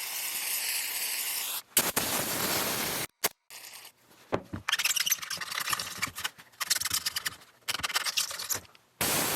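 Aerosol brake cleaner spraying in steady hisses, with a stiff brush scrubbing oil off a plastic chainsaw fuel tank in short irregular strokes between the sprays.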